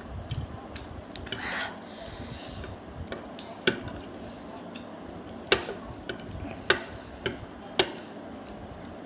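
Eating utensils clinking against a dish: several sharp, separate clinks over a quiet background.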